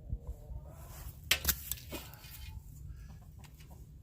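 A few light clicks and knocks of metal fence hardware being worked on a T-post, in a quick cluster about a second and a half in, over a low rumble.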